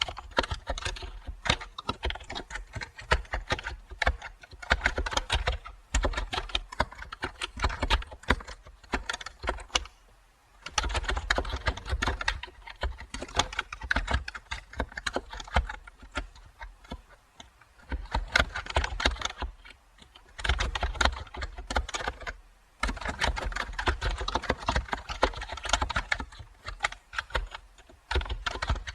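Computer keyboard typing: fast runs of keystroke clicks with a few short pauses between them.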